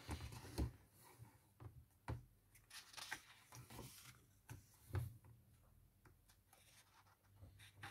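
Faint paper rustles and a few light taps as a page of a hardcover picture book is turned and the book is handled; the firmest sounds come near the start and around the middle.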